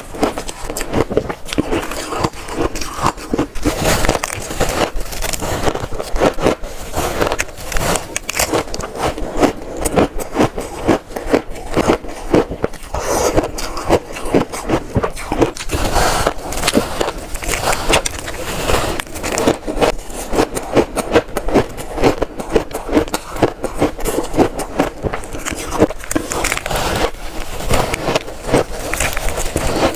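Close-up crunching and biting of shaved ice, a dense, continuous run of crisp crackling crunches.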